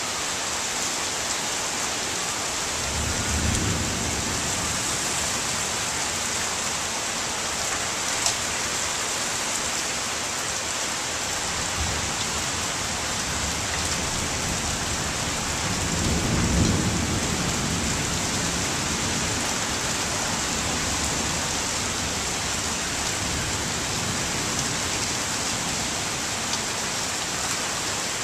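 Heavy rain falling steadily in a thunderstorm, an even hiss, with low rolls of thunder swelling about three seconds in and again, loudest, about sixteen seconds in. A single sharp click about eight seconds in.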